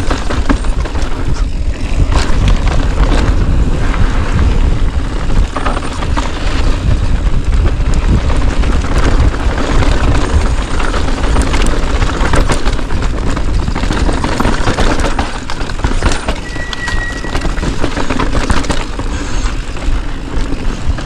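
Mountain bike riding fast down a rocky trail: heavy wind buffeting on the camera microphone, with the tyres and frame rattling and knocking over rocks.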